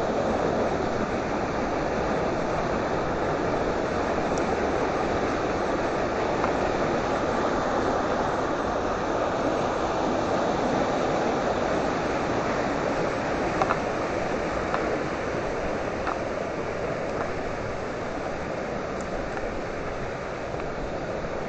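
River rapids: a steady, even rush of water, easing slightly near the end.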